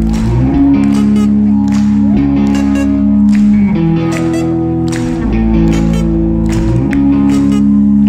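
Live rock band playing loud: sustained guitar and bass chords shifting about every second and a half, with drum and cymbal hits.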